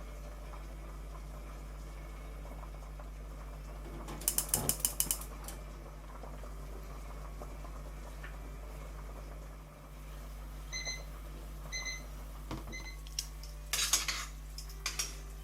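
Kitchen utensils clattering against dishes: a quick run of clinks a few seconds in and another burst near the end. In between come three short, high electronic beeps about a second apart, over a steady low hum.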